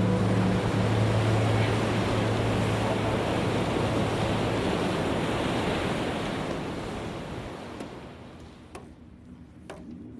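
A loud, steady rushing noise with a low hum under it for the first few seconds; it fades away from about six to eight seconds in, leaving a few faint clicks.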